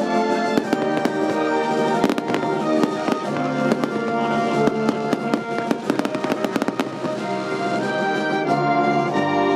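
Fireworks bursting and crackling in quick succession over a military band playing held notes.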